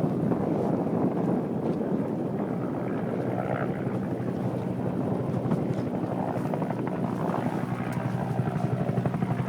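Helicopter's rotor chopping with a fast, even beat, with wind noise on the microphone.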